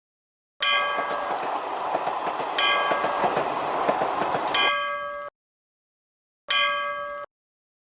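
Cartoon train sound effect: a train running past with a steady clattering noise for about four and a half seconds, cut off abruptly. Over it, a ringing bell-like chime is struck four times, about two seconds apart, the last one alone.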